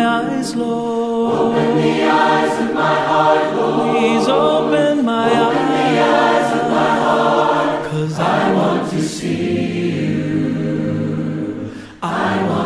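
Choir singing, several voices together in harmony; the singing fades out about twelve seconds in.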